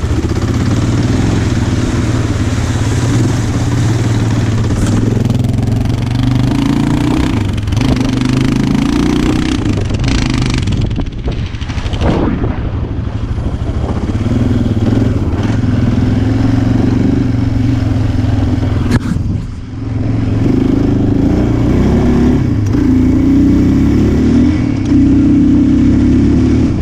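ATV engine running in first gear under load through a mud hole, its revs rising and falling, with short drops off the throttle twice.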